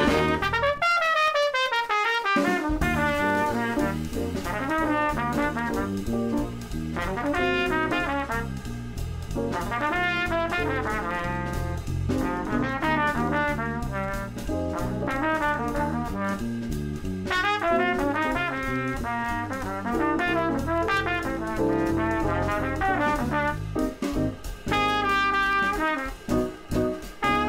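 Background jazz music led by trumpets and trombones, opening with a falling run of brass notes.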